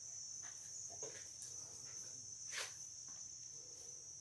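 Steady high-pitched insect trill, with a few faint knocks, the clearest about two and a half seconds in.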